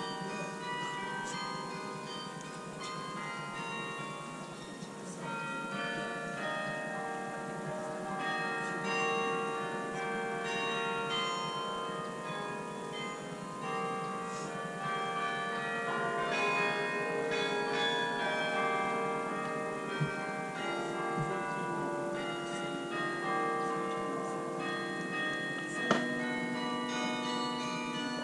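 The Bok Tower carillon, its tuned bronze bells played from a keyboard, ringing a melody, with many notes overlapping as they ring on. A brief knock sounds near the end.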